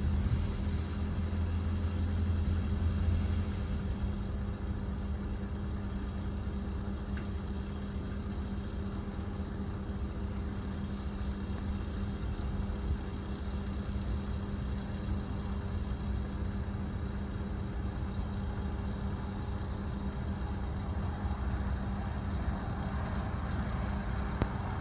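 Massey Ferguson 65 tractor engine running with a steady hum, heavier for about the first three seconds before settling to an even level.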